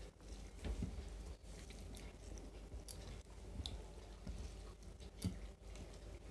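Faint eating sounds: fingers squishing and mixing rice on a plate, and chewing, with a few small scattered clicks.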